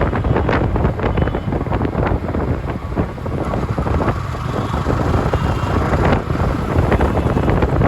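City road traffic: a continuous mix of vehicle engines and tyres, with wind buffeting the microphone.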